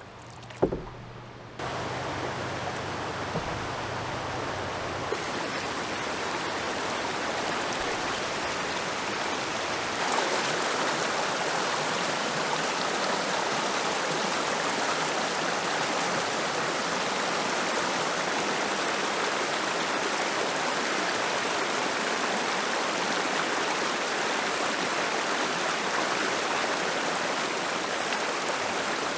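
Steady rushing outdoor noise, getting louder in steps about two seconds in and again about ten seconds in, with one sharp knock less than a second in.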